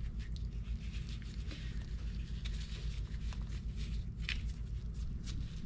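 Soft rustling and crunching of damp shredded cardboard and sawdust spawn as gloved hands pack it into a plastic flowerpot mould, with scattered small crackles, over a steady low hum.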